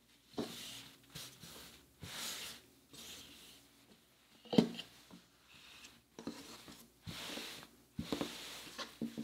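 Cloth rustling and swishing as a child's garment is folded and smoothed flat by hand on a tabletop: a series of brushing strokes about a second each, with a sharper knock on the table about four and a half seconds in.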